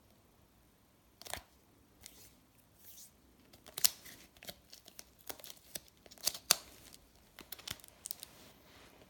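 Fingers and fingernails handling a paper sheet of sticker nail forms: a string of sharp clicks and short paper rustles and scrapes, the loudest about four and six and a half seconds in.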